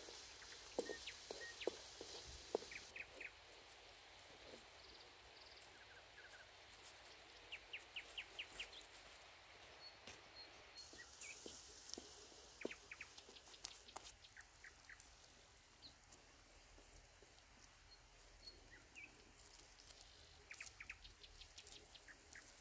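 Quiet outdoor ambience with birds chirping in short runs now and then. In the first few seconds there is faint sizzling and a few clicks from a wooden spatula stirring shrimp in a frying pan over a wood fire.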